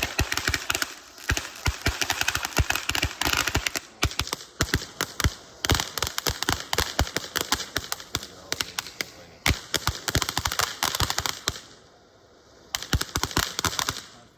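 Consumer fireworks going off in rapid strings of sharp pops and crackling, with short lulls. A near-quiet gap comes about twelve seconds in, then a last burst of pops stops near the end.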